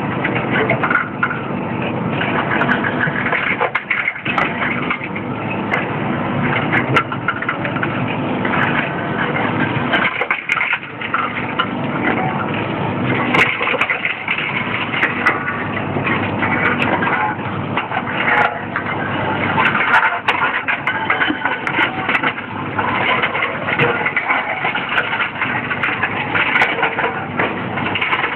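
Reverse vending machine for empty cans and plastic bottles running: its intake rollers spin each container to read the barcode, with continuous machine noise and a crunching crackle that the uploader takes for the containers being shredded inside. It eases off briefly twice, about 4 and 10 seconds in.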